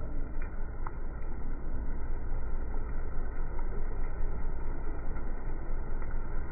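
Rain falling on a puddle, heard as a steady, muffled low rumble with a few faint drop clicks.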